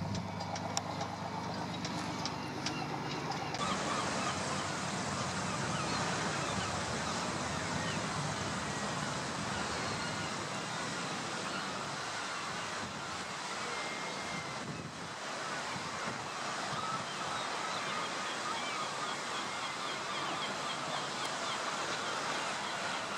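A motor cruiser's engine running low as it moves off, cutting off abruptly about four seconds in to a steady hiss of wind and choppy sea, with a few faint bird calls.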